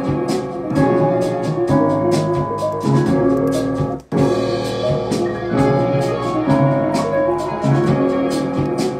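A beat being played back in a music production program: a repeating keyboard melody over drums, with quick high ticks throughout. It cuts out for an instant about four seconds in and starts again.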